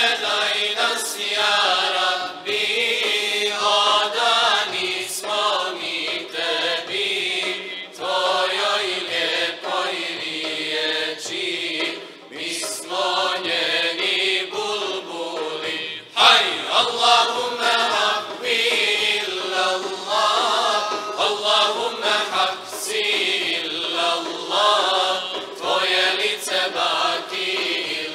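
A choir singing an ilahija, a Bosnian Islamic devotional hymn, with women's voices singing together.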